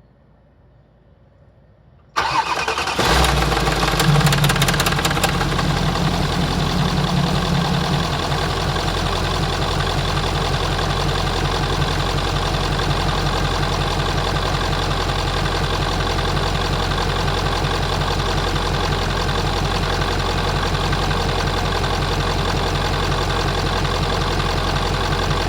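Mercedes OM628 4.0-litre V8 diesel started about two seconds in: it cranks briefly and catches, with a clattering rattle in the first few seconds that the owner puts down to the timing chain rattling on start. The fast idle then settles into a steady idle.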